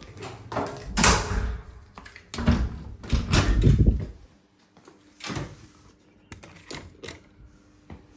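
Hotel room door with a lever handle and electronic lock being opened and shut: several loud knocks and clunks of the latch and door in the first four seconds, then a few fainter clicks.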